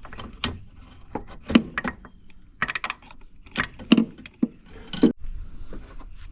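Irregular clicks and clinks of a hand tool and small metal parts as a Torx bit backs out the screws holding a MAP sensor, with a few quick runs of clicks in the middle.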